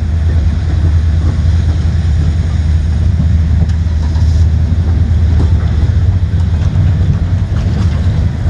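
Empty intermodal well cars of a freight train rolling past: a loud, steady low rumble of steel wheels on rail, with a few faint knocks.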